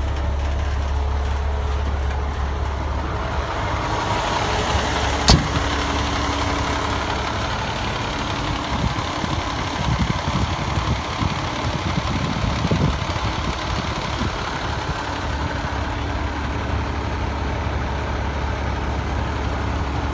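Fire engine's diesel engine idling with a steady low hum. There is a single sharp click about five seconds in, and some irregular low thumps in the middle.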